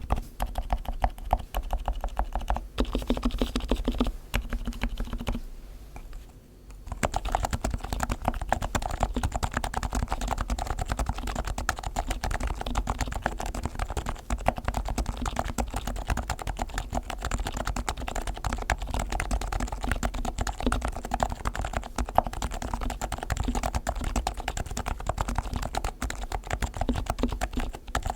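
Leopold FC660C keyboard with silenced Topre electrocapacitive switches being typed on quickly and continuously. The keys are fully lubricated, with dry- and wet-lubed sliders, lubed springs and tuned, lubed stabilizers, over a foam-dampened case. The typing eases off briefly about six seconds in, then resumes at a steady fast pace.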